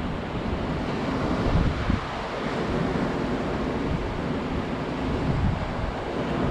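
Surf breaking and washing up the beach, with wind gusting on the microphone.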